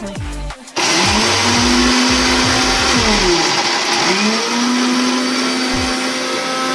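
Electric mixer grinder switched on about a second in and running loud, grinding masala. Its motor whine drops in pitch and climbs back about three seconds in, then holds steady.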